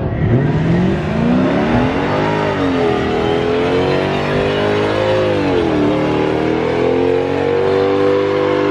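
A Mercedes-Benz C-Class sedan doing a burnout: the engine revs climb over the first two seconds and are held high, dipping briefly about six seconds in and then rising again, over the hiss of the rear tyres spinning on the pavement.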